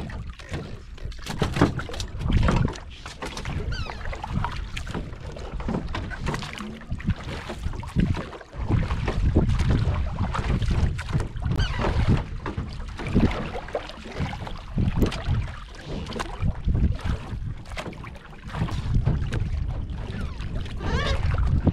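Water slapping and splashing against the side of a small wooden boat on choppy water, with wind buffeting the microphone as a gusting rumble. Scattered knocks and clicks come from gear being handled in the boat.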